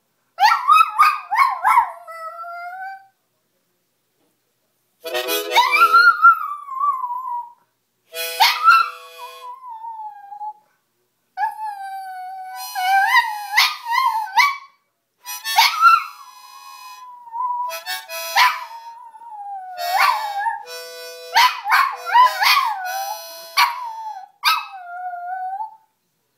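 A dog howling along with a harmonica: wavering howls that slide up and down in pitch, interrupted by short pauses, over short held harmonica chords.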